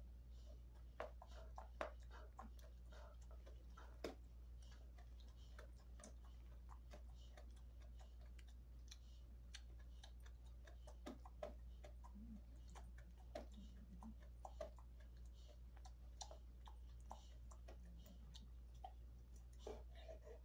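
Faint, irregular clicks and gnawing sounds of a large dog slowly chewing a cheek roll chew, over a steady low hum.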